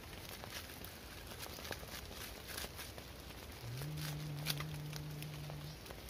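Steady rain pattering on a tarp, with scattered small crackles and clicks from the campfire. A low, steady hum starts a little past halfway and lasts about two seconds.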